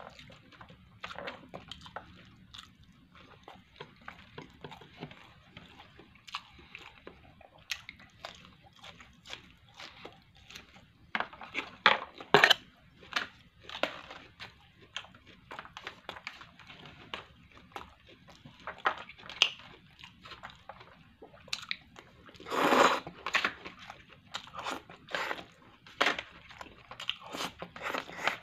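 Close-up eating sounds from a plastic bento lunch: chewing, with frequent light clicks of chopsticks and a plastic fork against the plastic tray. A louder run of clicks comes about 12 s in, and a longer, louder noise about 23 s in.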